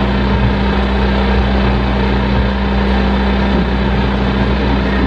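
Dense, loud electronic noise drone with a steady held low tone under a thick wash of noise, from an improvised experimental performance.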